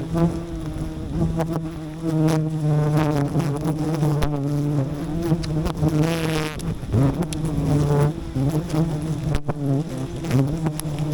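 A swarm of wild honey bees buzzing close to the microphone: a steady drone, with single bees flying near so the pitch rises and falls, most clearly about six seconds in.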